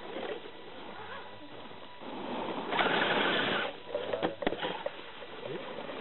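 RC scale crawler truck's electric motor and geartrain whirring as it works over a rock. It grows louder about two seconds in and is loudest for about a second, then a few sharp clicks follow.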